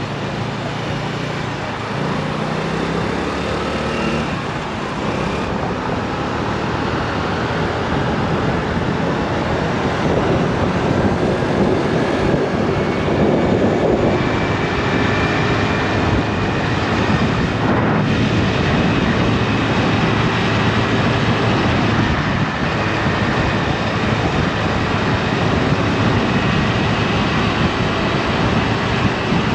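A Honda Navi's small single-cylinder engine running while riding, mixed with wind and road noise, growing louder over the first ten seconds or so.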